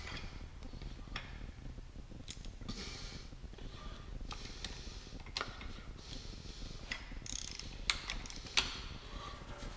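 A torque wrench and socket tightening the camshaft sprocket bolt on a Ford 351 Windsor, with a bar holding the sprocket: light ratchet clicks, metal clinks and scraping. Two sharper clicks come near the end.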